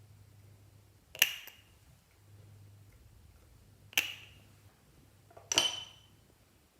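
Three sharp clinks of hard objects, each leaving a brief ringing tone: one about a second in, another about three seconds later, and a third, slightly longer, a second and a half after that.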